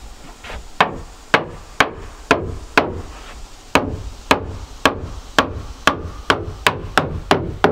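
Hammer blows on a wooden window frame: about fifteen sharp strikes, roughly two a second, with a short pause midway and coming faster near the end.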